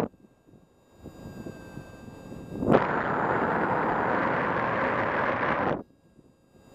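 Wind rushing over the camera microphone of a paraglider in flight: a loud, even rushing that cuts out at the start, comes back abruptly with a sharp blast about three seconds in, and cuts out again near the end.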